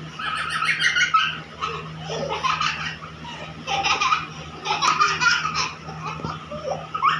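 A baby and a young girl laughing, in four or five bursts of giggling.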